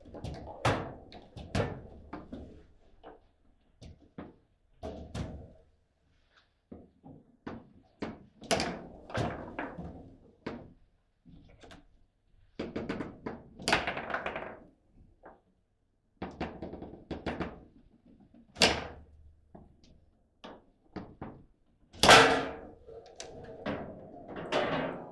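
Table football in play: the ball is struck by the rod-mounted players, and the rods knock against the table, giving an irregular run of sharp thunks and clacks with a few much louder hard shots, the loudest about 22 seconds in.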